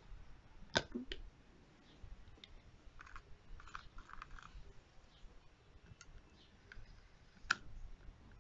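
Faint handling of a refillable plastic spray bottle as the cleaner capsule and trigger spray head are fitted. There is a sharp plastic click about a second in, soft scraping and rubbing in the middle, and another sharp click near the end.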